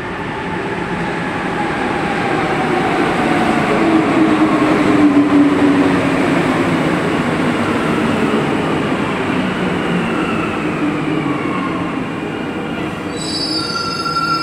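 Santiago Metro NS-16 train running, with several whining tones gliding down in pitch as it slows. A group of steady high tones starts near the end.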